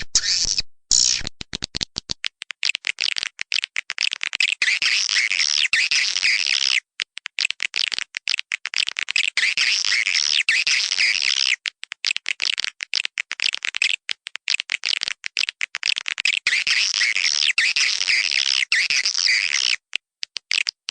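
Swiftlets twittering: a dense, continuous high-pitched chirping chatter of many birds, broken by a few brief gaps and dropping away shortly before the end.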